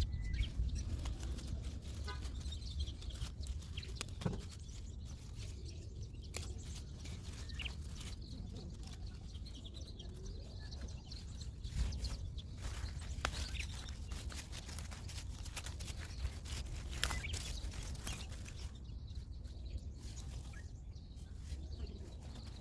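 Outdoor ambience: a steady low rumble with scattered small clicks and a few faint bird chirps.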